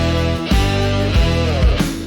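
Instrumental break in an AI-generated blues-rock song: guitar over bass and drums with a steady beat.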